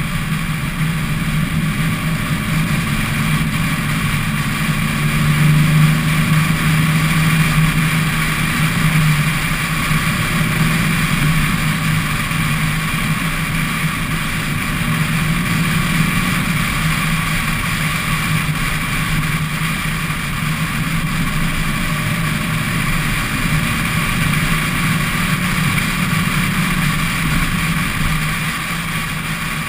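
Car engine droning steadily at cruising speed with rushing wind and road noise, heard from a camera mounted outside on the car's body; it swells a little about six seconds in, then holds steady.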